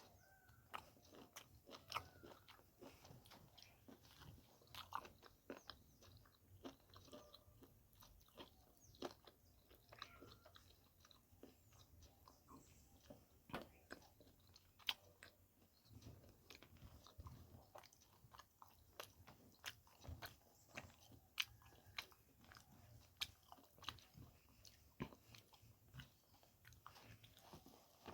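Close-miked mouth sounds of someone eating spicy pork curry and rice: chewing and biting with frequent irregular clicks and smacks, several a second.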